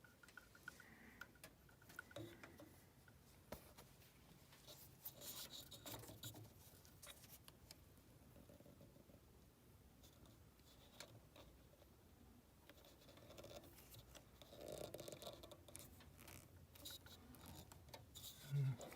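Near silence broken by faint scrapes, rustles and scattered clicks of hands handling the furnace's door panel and wiring.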